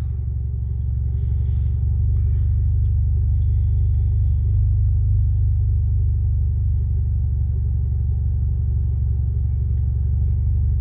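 Steady low rumble of an idling car heard from inside its cabin, with a faint brief hiss twice early on.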